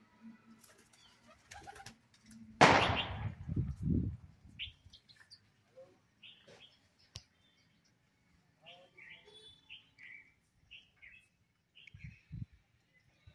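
A pigeon taking off, its wings clapping and flapping loudly for about a second and a half, followed by scattered short, high bird chirps.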